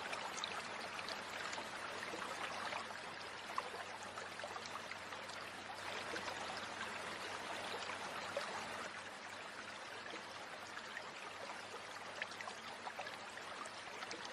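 Steady rush of running stream water, with faint scattered clicks and rustles as a fibrous plant stem is peeled apart by hand.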